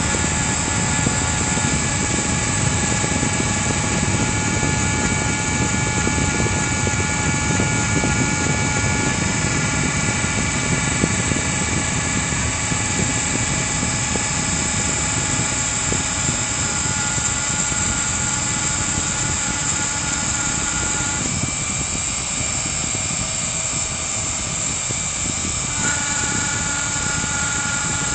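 CNC router spindle running steadily as it engraves wood, a constant high whine over a low rumble. Several steady machine tones shift in pitch twice in the second half as the motion changes.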